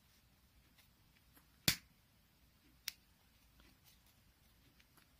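Quiet handling sounds: a few small sharp clicks as hands fold grosgrain ribbon with a lighter held in the fingers, the loudest about one and a half seconds in and another near three seconds, over faint room tone.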